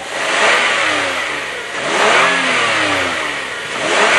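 The 2012 Kia Sorento SX's 3.5-litre V6 is revved three times, each rev rising in pitch and then falling back.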